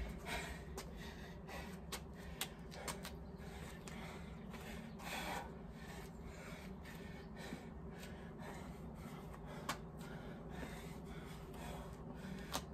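A man breathing hard with forceful exhales and gasps while exerting himself through dumbbell reverse lunges, with a few faint clicks over a steady low background noise.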